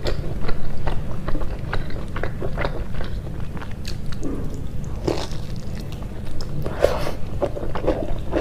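Close-miked eating sounds: biting and chewing on pieces of bamboo shoot and pork curry, a string of short crisp clicks and crunches at irregular intervals. A steady low hum runs underneath.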